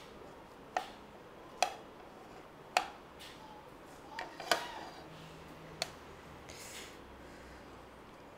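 Steel spoon clinking against a ceramic plate, about six sharp knocks spaced a second or so apart, as it scrapes the flesh out of steamed drumstick (moringa) pods.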